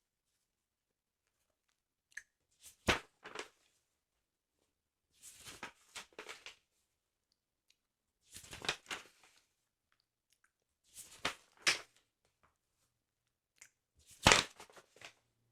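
Paper of a football sticker album being handled close to the microphone: five crisp crackling bursts about three seconds apart.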